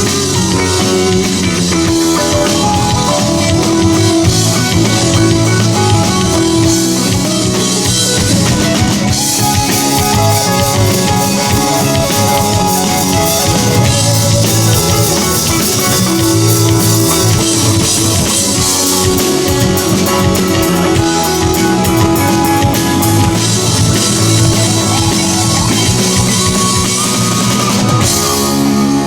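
Live rock band playing an instrumental passage: drum kit, guitar, bass and keyboards together at full volume.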